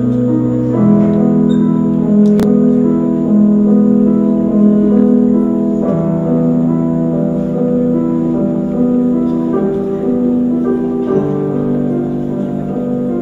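Slow piano music: sustained notes and chords that change every second or so.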